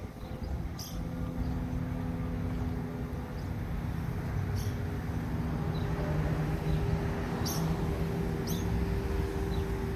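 A vehicle engine running steadily at idle, a low rumble with a steady hum, with a few faint clicks scattered through it.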